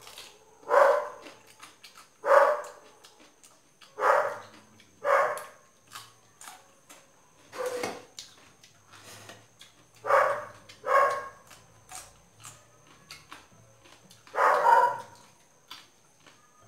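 A dog barking: about nine short barks, single or in pairs, with gaps of one to three seconds between them.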